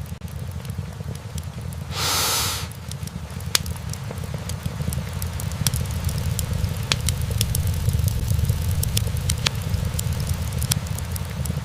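Wood fire burning in an open fireplace: a steady low rumble of flames under frequent sharp crackles and pops from the burning logs, the pops growing busier after the first few seconds. A brief rushing hiss rises about two seconds in.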